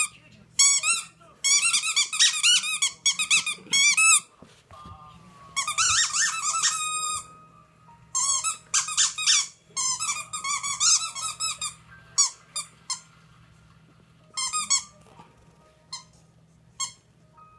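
Dog's squeaky toy squeaking in quick runs of rapid squeaks as a miniature schnauzer chews and bites on it, the runs coming in bursts and thinning out near the end.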